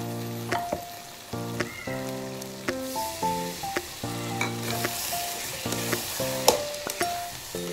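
Meat and spice masala sizzling in a metal kadhai while a metal ladle stirs it, with sharp clinks of the ladle against the pan, the loudest about six and a half seconds in. A background music track with a simple melody plays throughout.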